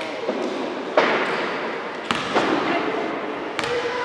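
Basketballs bouncing and thudding on a hardwood gym floor, a handful of sharp hits echoing through a large hall. The loudest comes about a second in.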